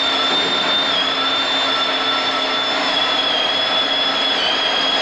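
Hydraulic pump running a jack that tensions the stressing bars pulling two precast concrete bridge segments together: a steady high whine over hiss, its pitch dipping slightly about a second in and again near the end.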